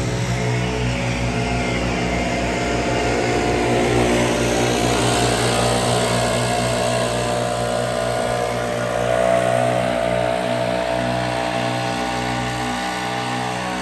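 Zero-turn mower engine running steadily, with the rush of gas backpack leaf blowers over it, swelling louder around the middle.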